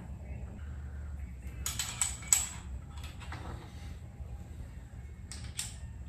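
Light clicks and clinks of small bicycle parts being handled during assembly at the handlebar and stem. A cluster comes about two seconds in, with one sharp click the loudest, and two more clicks come near the end, over a low steady hum.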